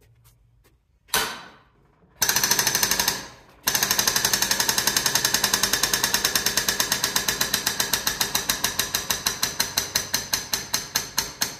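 Air-over-hydraulic pump working in rapid pneumatic strokes: two short bursts, then a long run of quick, even pulses that slow steadily toward the end as hydraulic pressure builds. The fitting under test is still leaking.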